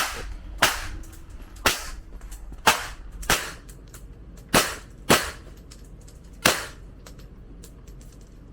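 Gunshots on a shooting range: about eight sharp shots at uneven intervals of half a second to a second and a half, with fainter cracks between them. The firing stops for the last two seconds.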